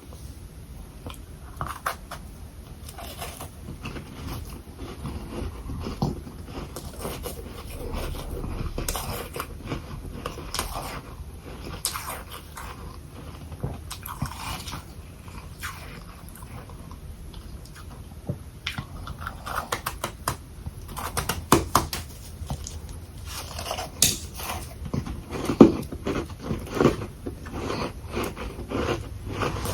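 Close-up biting and chewing of powdery humidifier freezer frost balls: a steady run of soft crunches and crackles, turning into louder, more frequent crunching in the last third.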